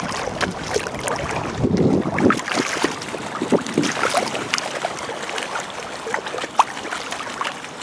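Water sloshing and splashing on the lake surface, with scattered small splashes and wind noise on the microphone.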